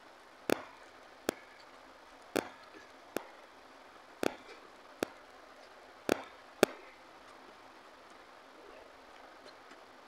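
Fingertips tapping and scraping a stainless steel plate while gathering the last rice and dal by hand: sharp clicks, mostly in pairs, eight in the first seven seconds, then they stop.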